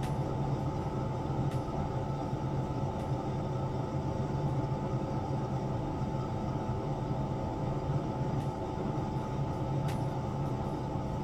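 Steady low machine hum with an even hiss over it, and a few faint clicks.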